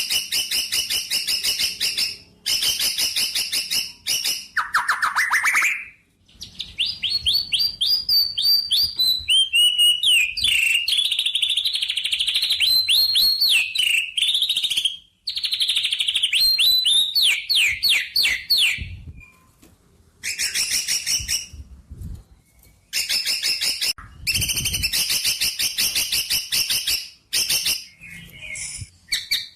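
A songbird singing fast trills and chattering phrases of rapidly repeated high notes, broken by short pauses.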